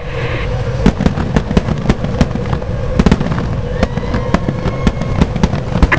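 A field of IndyCar racing engines, ethanol-fuelled Honda 3.5-litre V8s, firing up and being blipped on pit road. A dense low rumble is broken by sharp, irregular pops and cracks from the exhausts.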